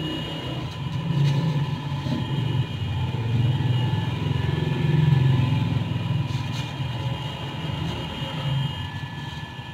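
A motor vehicle's engine running, a low sound that grows louder over the first few seconds and then fades away.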